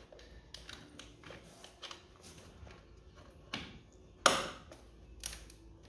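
Plastic engine cover on a scooter being wiggled and pried at while it catches on the exhaust, giving a run of light clicks and knocks with one sharp clack about four seconds in.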